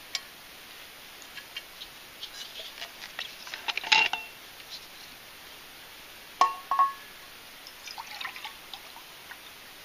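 A stainless steel camp cup and an insulated vacuum bottle being handled: small clicks and rattles, with sharp metal clinks that ring briefly about four seconds in and twice more about six and a half seconds in. Liquid is then poured from the bottle into the cup.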